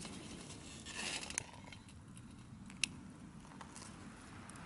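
Faint handling sounds of a lighter being worked at the base of a metal charcoal chimney starter: a short scraping rustle about a second in, then a single sharp click near the middle.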